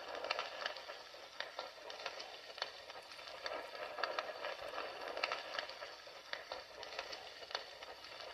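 A fire crackling: irregular sharp pops and snaps over a steady hiss.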